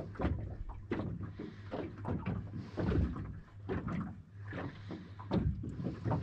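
Small waves slapping and knocking against the hull of a small boat on choppy water, in irregular splashy thumps about once or twice a second.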